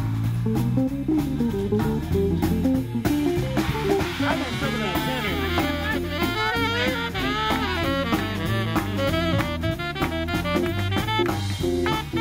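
Live swing band playing an instrumental passage: electric bass guitar and drum kit keep the beat, and a horn takes over the melody with a wavering line about four seconds in.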